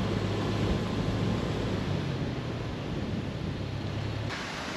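Steady road and engine noise inside a moving car, with a constant low drone. Near the end it cuts off abruptly to a quieter, even hiss.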